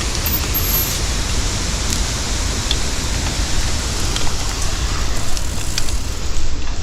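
Batiscan River rapids rushing: a steady, even rush of white water with a deep rumble underneath.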